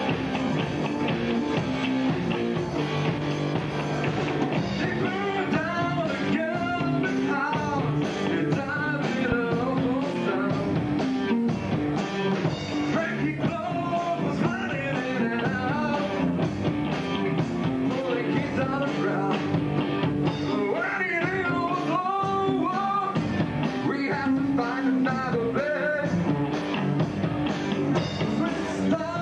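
Live rock band playing: a man singing into a microphone over electric guitars, electric bass and a drum kit, steady and loud.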